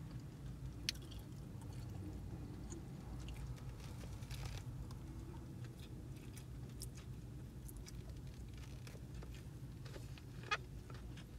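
A person chewing mouthfuls of chow mein, with small clicks and scrapes of a plastic fork in a foam takeout container. Two sharper clicks stand out, about a second in and near the end, over a steady low hum.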